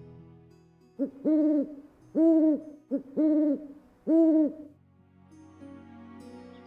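A bird's hooting call: four loud, clear hoots about a second apart, each a held note that rises and falls slightly, with a short lead-in note before the first and third.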